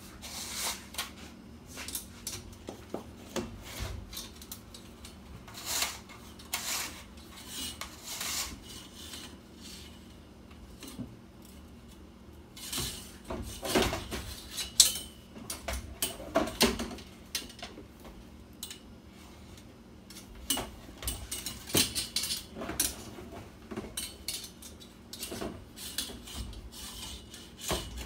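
A fish tape being fed by hand from its reel into a hole in a tubular roll cage, with irregular scraping, clicks and rattles of the tape and its reel.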